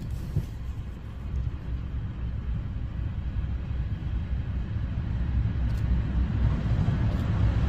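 Norfolk Southern freight train's diesel locomotives approaching, a low engine rumble growing steadily louder.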